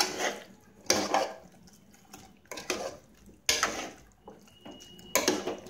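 Spoon scraping and clanking against the inside of an aluminium pressure cooker as chicken pieces are stirred, in four separate strokes about a second apart.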